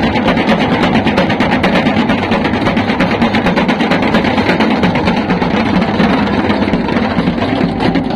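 Keratukng, the long Dayak drums of Kutai Barat, beaten with sticks by several players in a fast, dense, unbroken beat: music accompanying a Belian dance.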